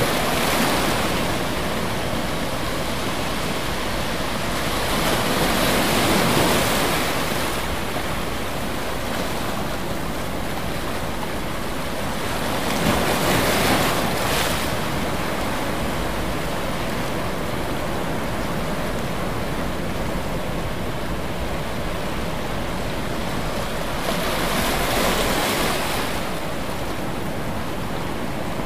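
Ocean waves washing on a shore: a steady rushing sound that swells four times as waves break, at the start, about six seconds in, about halfway through and near the end.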